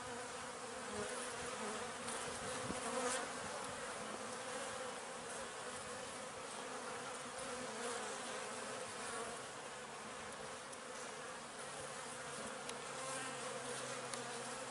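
Honeybees buzzing steadily at an open hive, many wings together making a continuous hum.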